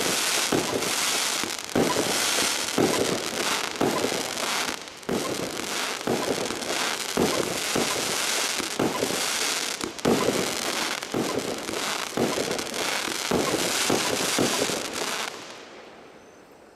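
Donnerblitz firework going off: a dense, unbroken run of bangs and crackling that stops about fifteen seconds in, then fades away.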